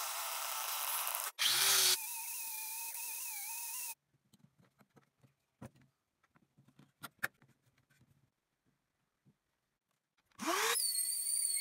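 Electric scroll saw cutting a pine board: a steady cutting noise with a whining motor tone that stops abruptly about four seconds in. Then several seconds of near quiet with a few light knocks, before the saw's motor starts up again with a rising whine near the end.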